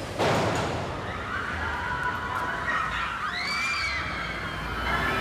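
Crowd of fans screaming and shrieking in high, sliding voices over a car's low engine rumble, with a sudden loud rush of noise just at the start.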